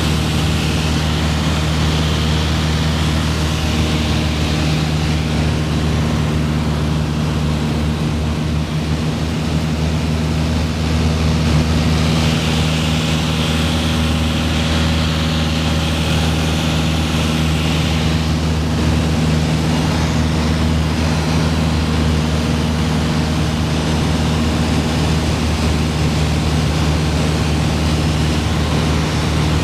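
Piper PA-28-161's four-cylinder Lycoming O-320 engine and propeller running steadily in flight, heard inside the cockpit, with a steady hiss over the low engine hum.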